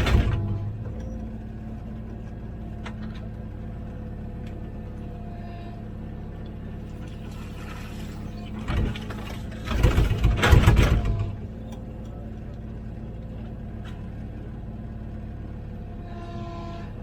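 Komatsu PC16 mini excavator's diesel engine running steadily under digging work. Louder rough bursts of noise come about nine seconds in and again for a second and a half around ten seconds.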